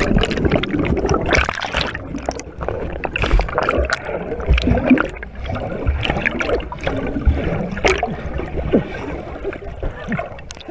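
Muddy water sloshing, gurgling and splashing right at the microphone as a person moves through it, with many small irregular splashes and knocks.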